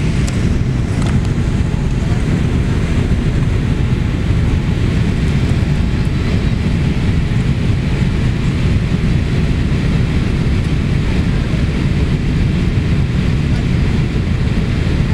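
Steady cabin noise inside a Boeing 787-8 climbing after takeoff, heard from a window seat over the wing: an even, low rush of engine and airflow noise.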